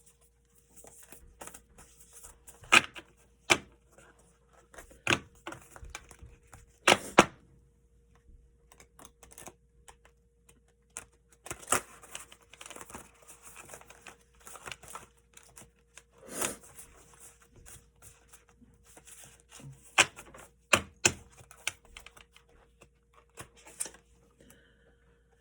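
Oracle card deck shuffled by hand: irregular snaps and taps of cards, a handful sharp and loud, between stretches of soft rustling.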